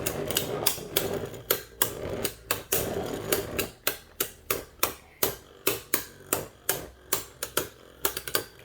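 Two spinning Beyblade tops, one of them 3D-printed, clashing and knocking together repeatedly in a stadium. A light spinning hiss sits under the hits at first, then the clacks settle into an even rhythm of about three a second.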